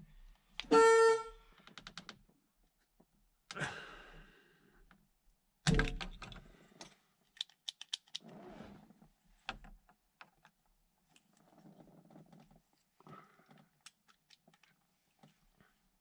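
A 1976 Camaro's horn sounds in one short blast about a second in while the horn button on the new steering wheel is worked. A loud thunk follows a few seconds later, then scattered clicks and light rattles from the button and wheel hub being handled.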